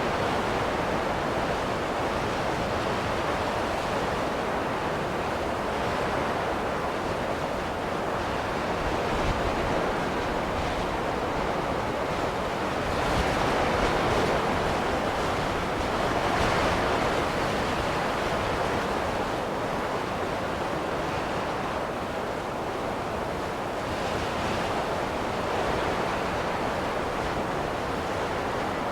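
Steady rushing wind of a snowstorm, swelling in two stronger gusts about halfway through.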